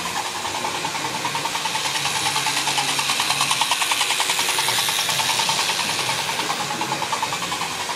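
Hornby 46201 Princess Elizabeth model locomotive running on its track, its small electric motor and gears whirring with a rapid mechanical chatter from the wheels and gearing. It grows louder about halfway through as it passes close by, then eases off.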